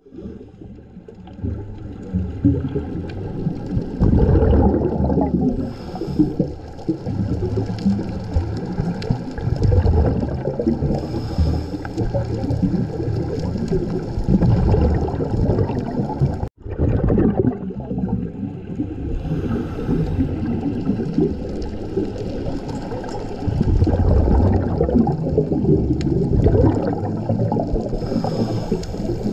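Muffled, deep rushing and gurgling of water around a submerged camera, with brief dropouts at the very start and about sixteen seconds in.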